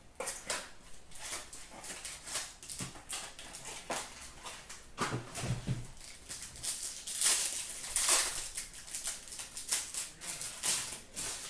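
Trading-card packaging being opened and handled by hand: irregular crinkling, rustling and light clicks of wrapper and cards, with a dull bump about halfway through.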